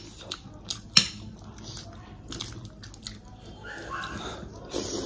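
A person chewing and biting into food, with two sharp clicks about a second apart near the start.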